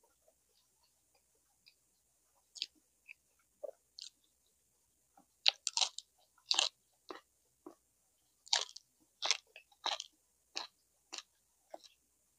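Close-miked chewing of soft braised pork leg and rice: irregular wet lip smacks and mouth clicks, sparse at first and coming thicker from about five seconds in.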